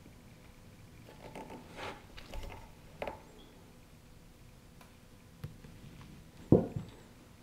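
Casting slip pouring in a thin stream from a bucket's spout valve into a plaster slip-casting mold, faint, with a few soft handling noises. Near the end comes one sharp knock, the loudest sound, followed by a smaller one.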